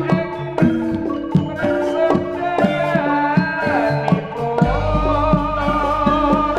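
Javanese gamelan music accompanying jaranan: ringing metallophone notes in a steady beat over hand-drum strokes. About four and a half seconds in, a deep gong stroke enters and a held, wavering melody line comes in above.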